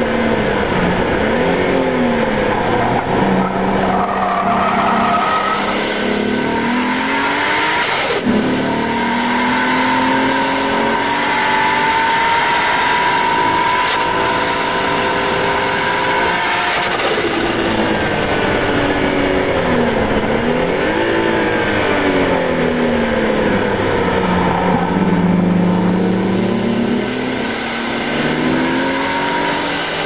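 Turbocharged Nissan RB20DET straight-six in an R32 Skyline, through its twin blast-pipe exhaust under hard acceleration on track. There is a gear change about eight seconds in, then the engine holds high revs on the straight. About halfway through it lifts off, and the revs drop with dips and rises as it changes down for a corner, then it builds again near the end.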